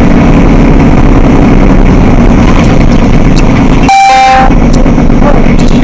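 Loud, steady road and engine rumble inside a truck cab at highway speed. About four seconds in, a horn sounds one short blast of about half a second.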